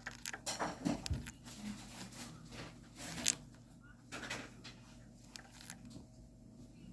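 A pet parrot making a run of short, scratchy rasping noises and clicks, with a brief falling tone about a second in and a sharp hiss a little past three seconds.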